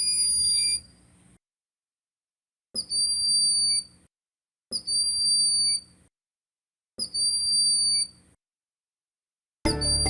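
Recorded bird call played as an identification hint: a high, thin whistle about a second long, each led by a short note, repeated about every two seconds with dead silence in between.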